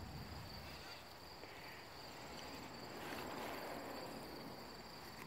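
Insects chirring steadily outdoors in a thin, high-pitched trill, with a soft rustle about three seconds in.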